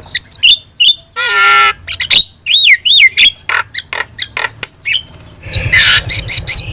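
Jalak starling chattering: a quick run of whistled notes that swoop up and down, sharp clicks, and two harsh rasping squawks, one about a second in and one near the end.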